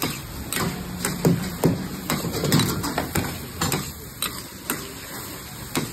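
Perforated steel ladle clanking and scraping against an iron karahi as chicken in tomato gravy is stirred, roughly two knocks a second, over a steady sizzle of the frying.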